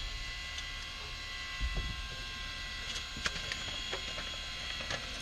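Steady electrical hum with a few faint clicks in the cockpit of a Cessna 172 whose engine has just been shut down.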